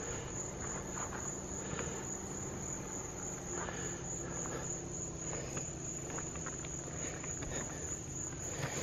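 Crickets chirping in a continuous high trill, over a low steady hum and a few faint clicks.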